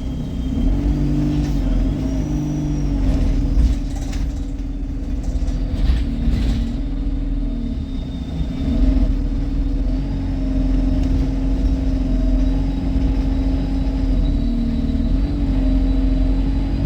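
London bus driving along, heard from inside the passenger compartment: a low rumble with a steady droning tone that wavers slightly in pitch, plus a faint high whine. A few brief rattles come about four to seven seconds in.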